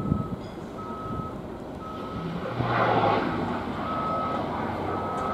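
A vehicle's reversing alarm beeping about once a second on a single steady tone. About two and a half seconds in, a brief swell of rushing noise rises over it, with a low rumble underneath throughout.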